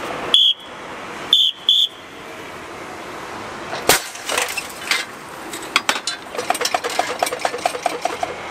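Puffed-rice pressure cooker being opened: three short high-pitched tones, then about four seconds in a sharp bang as the pressurised rice is released into the metal collecting box, followed by a hiss of escaping steam and a scatter of clicks and rattles.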